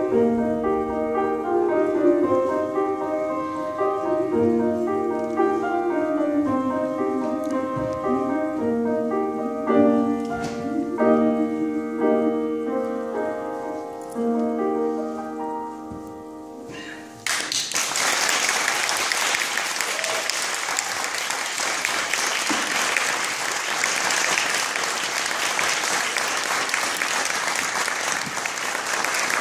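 Grand piano playing slow closing chords that die away, then an audience breaks into applause a little over halfway through and keeps clapping.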